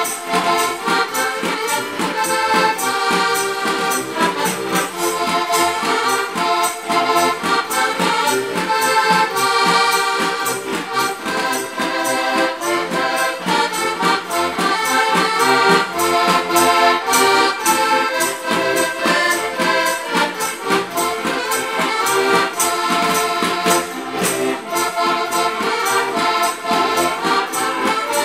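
Two diatonic button accordions (Slovak heligónky) playing a traditional folk tune together, the melody over a steady rhythm of bass chords.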